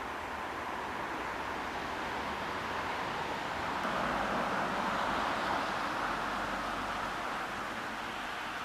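DR class 118 diesel-hydraulic locomotive running at a distance, a steady rushing sound that swells about four seconds in and then eases off.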